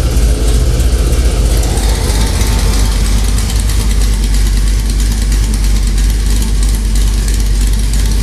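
Supercharged 6.2-litre V8 of a Chevrolet Camaro ZL1 idling loud and steady with its electronic exhaust diverters opened, the exhaust dumping out ahead of the mufflers, heard from inside the cabin.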